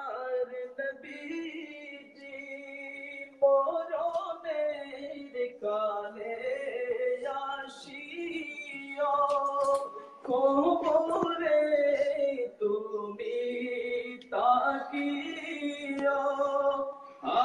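A man singing a Bangla naat, a devotional song in praise of the Prophet, in long melodic phrases with held notes and no drums or instruments behind him.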